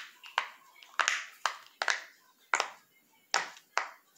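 Silicone pop-it fidget toy having its bubbles pressed and flipped by fingers: a string of sharp little pops, about two a second, some coming in quick pairs.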